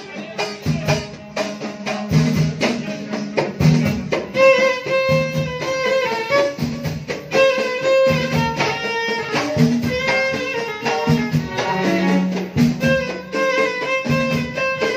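Lively dance music led by a violin melody over a steady, regular drum beat.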